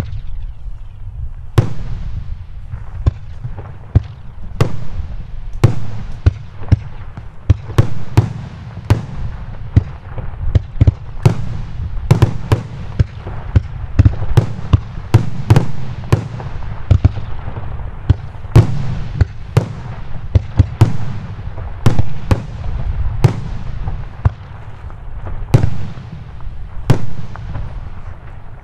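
Nico 'Tropical Island' 25-shot, 45 mm fireworks cake firing its shots one after another: a long, irregular string of sharp launch thumps and bangs from the bursting shells, with a low rumble between them.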